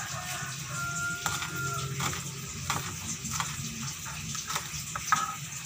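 Knife slicing green chillies on a wooden chopping board: irregular taps of the blade on the board over a steady background hiss.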